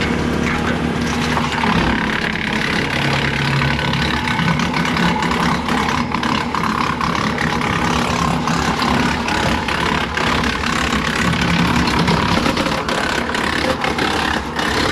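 Tractor engine driving a PTO-powered Woodland Mills WC68 wood chipper: a steady, loud drone with many short, sharp knocks and cracks through it.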